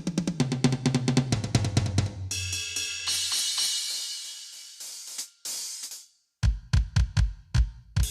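Aroma TDX-16S electronic drum kit's sound module playing a fast fill down the toms, its pitch stepping lower, that ends on a crash cymbal which rings and fades. After a short dead silence a new beat starts with heavy bass drum hits.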